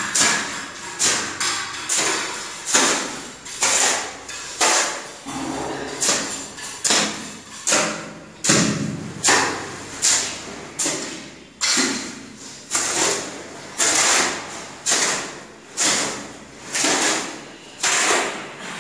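A short-handled hoe chopping into and scraping through a pile of sand on a concrete floor, one gritty stroke about every two-thirds of a second.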